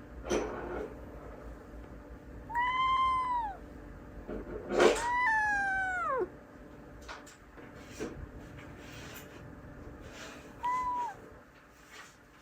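Domestic cat meowing three times: a meow of about a second that rises and falls, a louder one that slides down in pitch, and a short one near the end. A sharp knock sounds just before the second meow.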